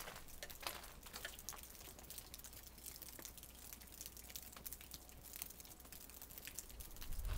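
Faint, irregular ticks and light taps of rain dripping, over a low steady hum.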